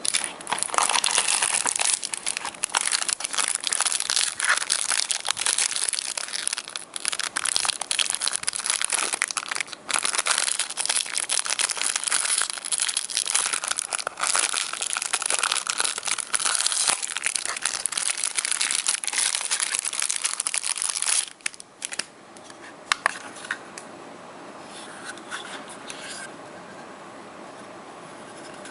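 Plastic wrapping crinkling and rustling continuously as a USB Wi-Fi adapter is unwrapped and lifted out of its box, stopping about three quarters of the way through; after that only a few light handling clicks.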